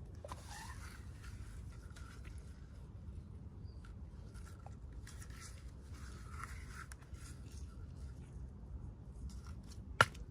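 Soft, intermittent rustling and scraping of packaging being handled and opened, with one sharp click near the end.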